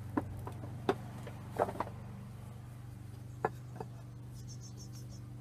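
About six light taps and knocks as unfired clay pieces are set down on a kiln shelf, over a steady low hum.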